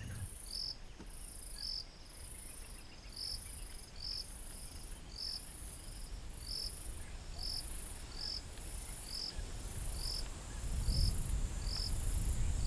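An insect chirping in an even rhythm, about one and a half high, buzzy pulses a second. A low rumble swells in underneath near the end.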